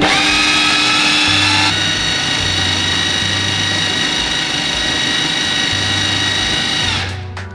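Food processor motor starting abruptly and spinning up, running with a steady high whine as it blends a thick dough mixture, then winding down near the end.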